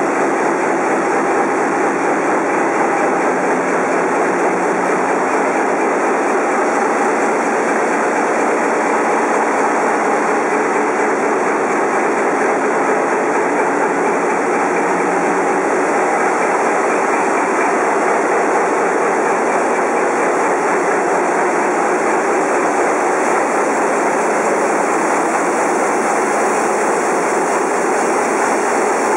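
Large marine diesel engines running in a ship's engine room: a loud, steady mechanical din that does not change.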